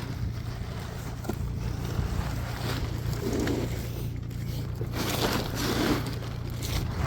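Wind rumbling on the microphone, with a plastic tarp rustling and flapping in two louder bursts, about three seconds in and again around five to six seconds in.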